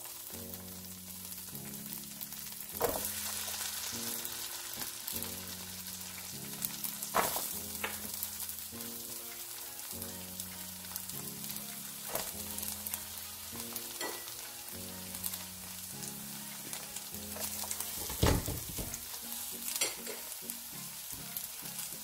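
Chopped onions sizzling in melted butter in a pan, stirred with a spatula that scrapes or knocks against the pan every few seconds. Quiet background music with repeating low chords plays underneath.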